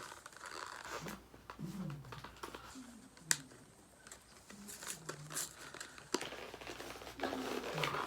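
Plastic wrapping and cardboard crinkling and tearing as a boxed trading card product is unwrapped and opened, with a sharp click about three seconds in.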